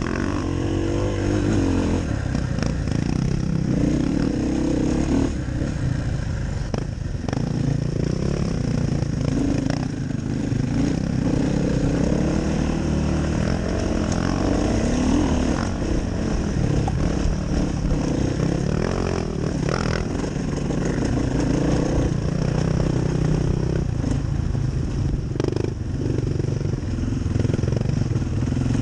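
Enduro dirt bike engine running along a rough trail, its pitch rising and falling with the throttle, heard from a helmet camera, with a few sharp knocks from the bike over the ground.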